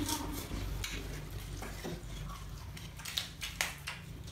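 Eating at the table: chewing with a few sharp clicks of chopsticks against a rice bowl, the loudest pair about three to three and a half seconds in, over a low steady hum.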